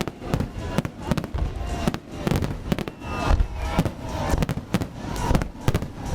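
Fireworks display: a rapid, irregular run of loud bangs and pops, several a second, from exploding shells.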